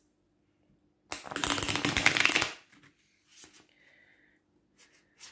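A Lo Scarabeo tarot deck of thin, bendy card stock being riffle shuffled: a rapid run of card flicks lasting about a second and a half, followed by a few faint taps and rustles of the cards.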